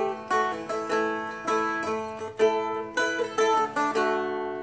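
Seagull Merlin, a four-string fretted dulcimer-style instrument, strummed slowly, with about a dozen strokes carrying a melody over its chords. A last chord is struck about four seconds in and left to ring out.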